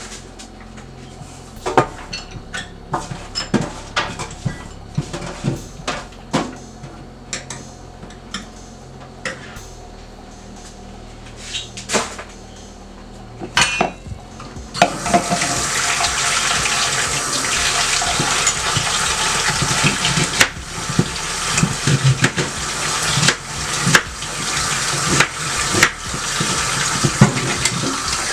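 Scattered clinks and knocks of dishes and utensils being handled, then about halfway through a kitchen tap comes on and water runs steadily into the sink, with more clatter over it.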